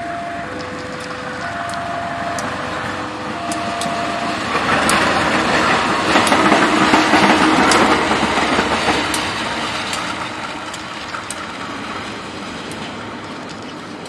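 Level crossing alarm sounding two alternating tones over the first few seconds, then a KAI CC 201 diesel-electric locomotive passing close by. Its engine and wheel noise rises to a peak about six to eight seconds in, with sharp clicks of the wheels over the rail joints, and fades as it moves away.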